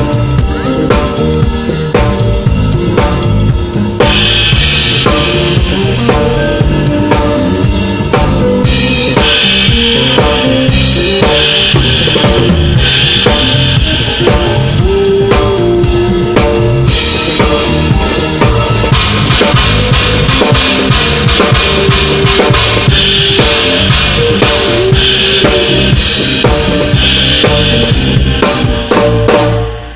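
Music led by a drum kit: kick drum, snare and rimshots in a steady groove, with pitched instruments underneath. It dips briefly just before the end.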